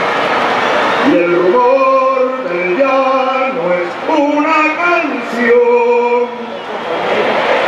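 A single voice singing a slow melody through a PA, holding notes that step up and down, with no clear words, from about a second in until about six seconds. A steady hiss of rain and crowd noise fills the stretches before and after the singing.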